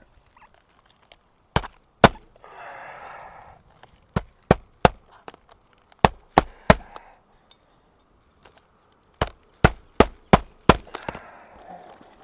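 Roofing hatchet driving nails through shingles into the roof deck: sharp hammer blows in quick clusters of two to five, one nail after another, about thirteen strikes in all.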